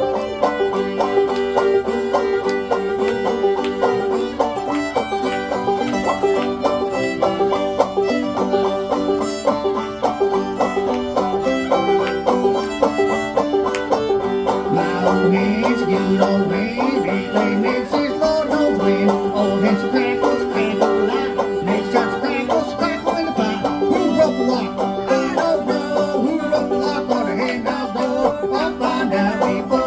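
Bluegrass string band playing an instrumental break, led by fast banjo picking over steady rhythm backing.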